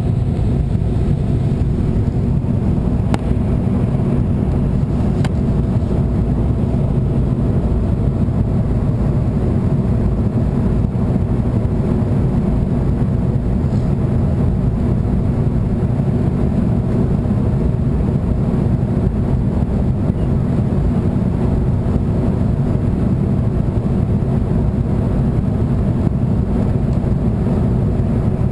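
Airliner in flight heard from inside the passenger cabin: a steady, even drone of engines and airflow, strongest in the low register.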